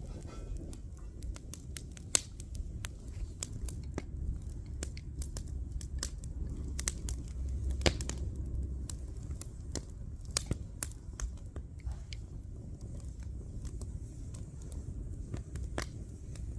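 Open wood fire crackling, with irregular sharp pops and snaps, the loudest about two and eight seconds in, over a steady low rumble.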